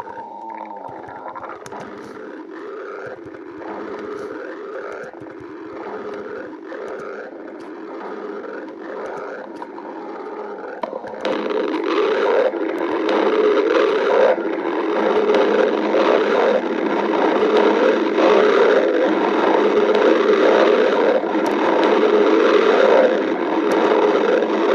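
Stomach growling: a softer rumble that pulses about every half-second, then about eleven seconds in a louder, unbroken rumbling that carries on.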